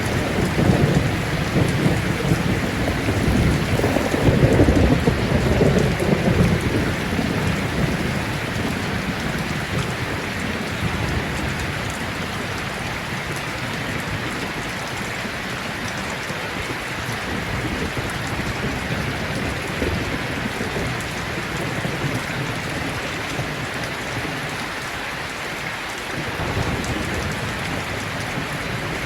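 Steady rain falling, with a low thunder rumble that swells in the first few seconds and fades away by about seven seconds in.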